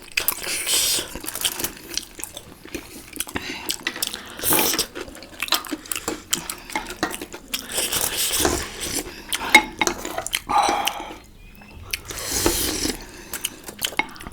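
Close-miked chewing and biting of momo dumplings, wet mouth sounds with spoon and plate clinks in between.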